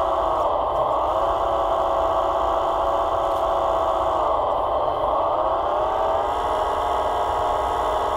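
A model tractor's electric hydraulic pump whining steadily while the crane is worked. Its pitch sinks about four seconds in and climbs again a couple of seconds later as the valves load and unload it.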